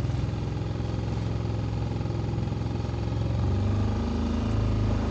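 Small motorboat's engine running steadily. About three and a half seconds in, its note shifts and it grows a little louder.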